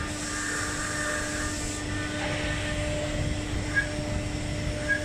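CNC router spindle running steadily with its bit cutting into a wood board: a constant hum with cutting noise over it and a few short sharp clicks.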